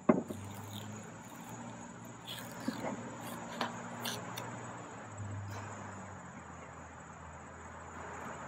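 Masking tape being peeled off a painted outboard motor cowling: two sharp clicks at the start, then a few short crackles and rips over the next few seconds. Steady insect chirring runs underneath.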